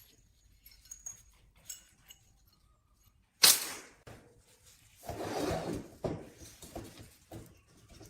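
Handling noises: a sharp knock a little under halfway in, then about a second of rustling or scraping and a few smaller knocks.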